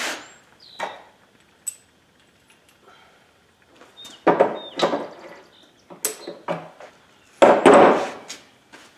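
Steel tractor hitch parts clanking: a pin and the three-point top link handled, carried and set down on a plywood rolling cart among loose tools. There are several separate knocks, with the loudest clatter near the end as the link goes down on the cart.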